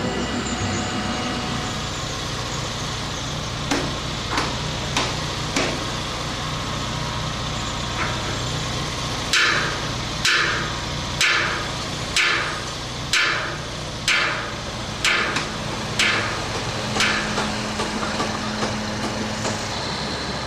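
Sledgehammer blows on a steel beam, each a sharp metallic clang with a ringing tail: a few scattered strikes, then a steady run of about one a second, over a crane's engine idling steadily.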